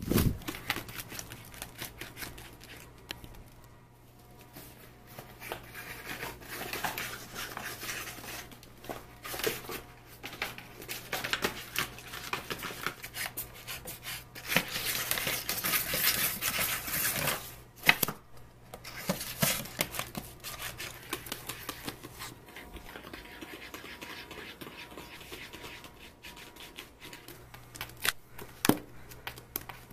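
A Sphynx kitten clawing and pawing at a paperback book on a hard floor: irregular scratching and rustling of paper with sharp ticks, loudest in a long stretch of scraping about fifteen seconds in.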